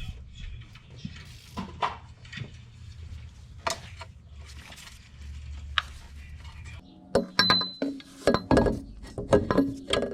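Scattered metallic clinks and knocks of tools and metal parts being handled, growing busier and louder about two thirds of the way in.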